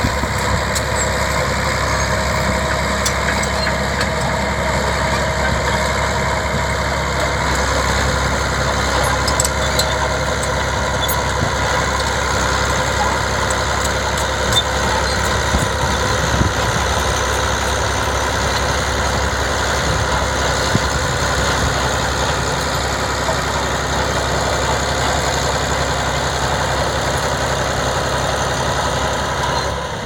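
Crawler bulldozer's diesel engine running steadily as the machine pushes soil with its blade, with a few sharp knocks now and then.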